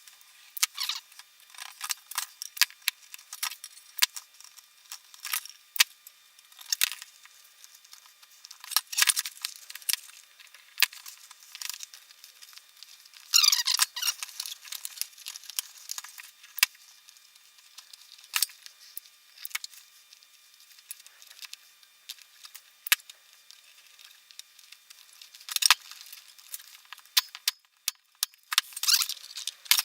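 Scattered small clicks, taps and rustles from hand work on a beekeeper's smoker bellows: upholstery fabric and thin plywood being handled and glued. About thirteen seconds in there is one longer squeak that falls in pitch.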